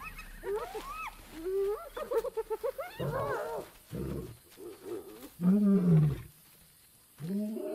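Spotted hyenas whooping and giggling in rising, rapid calls for the first few seconds. Then a male lion roars in a series of deep, falling grunting calls, the loudest about two-thirds of the way through and another near the end. The roar is what drives scavengers off a kill.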